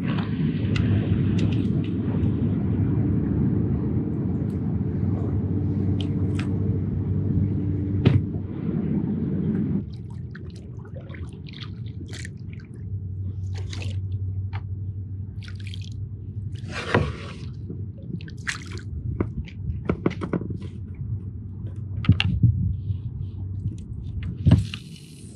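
Kayak paddle strokes: water dripping and splashing off the paddle blades over a low rumble. About ten seconds in the rumble drops away and the scattered drips and splashes stand out more clearly.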